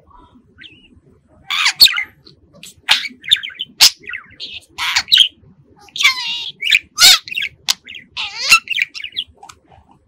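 Budgerigar chirping and whistling: a fast string of short, sharp calls with a few warbling notes among them, starting about a second and a half in.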